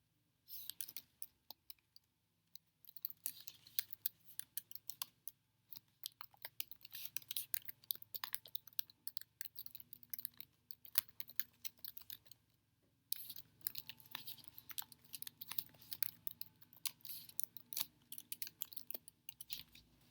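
Rapid, irregular clicking and tapping in long runs, with brief pauses near the start and about two-thirds of the way in.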